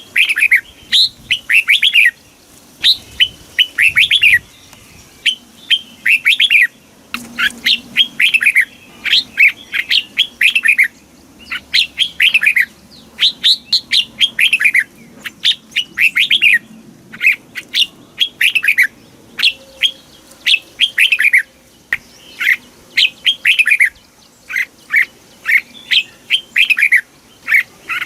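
Red-whiskered bulbul singing, with quick phrases of a few clear whistled notes that slide downward. The phrases repeat about once a second with short pauses between them.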